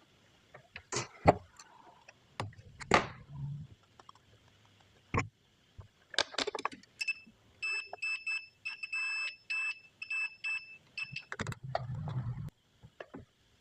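Clicks and knocks of handling on a workbench, then a high electronic beep that sounds on and off irregularly for about four seconds, in the middle of the stretch.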